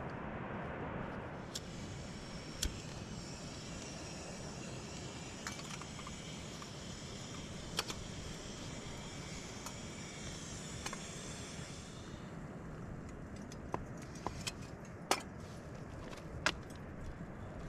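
Rustling and light clicks of camping gear being handled in a tent, over a steady background of outdoor noise. The rustling runs through most of the first two-thirds, and sharp little clicks come now and then, more often near the end.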